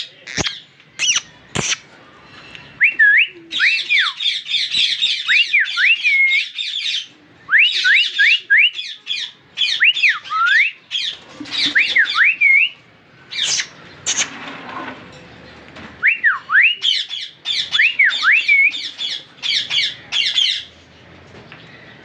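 Indian ringneck parakeet screeching in repeated harsh bouts. Clear whistled notes that swoop up and down come in groups between the screeches, and a few sharp clicks sound in the first two seconds.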